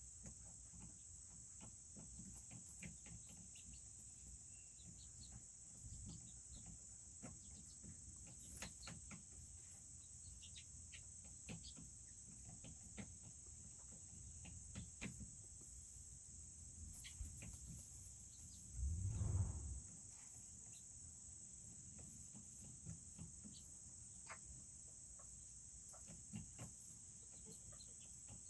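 Faint, steady high-pitched trilling of crickets, with scattered small clicks and ticks and a single dull low thump about two thirds of the way through.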